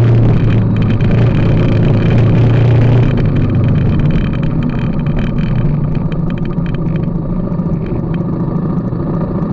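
BMW G310GS's 313 cc single-cylinder engine running steadily under way; about three seconds in its note drops and it gets quieter, with scattered clicks over it.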